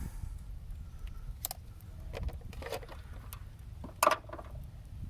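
Scattered light clicks, rustles and knocks of the old rubber cowl seal and plastic cowl parts being handled and pulled out, with a sharper knock about four seconds in.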